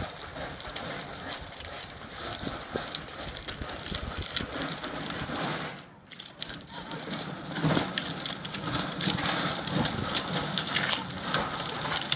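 A wheeled gas grill clattering and rattling as it is pushed along a wet asphalt road, mixed with walking footsteps. The clatter drops away briefly about six seconds in, then comes back louder.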